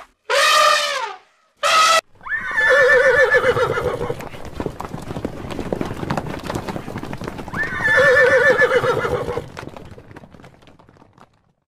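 An elephant trumpeting in two short blasts in the first two seconds, then a horse whinnying twice, about five seconds apart, with hoofbeats between; the sound fades out near the end.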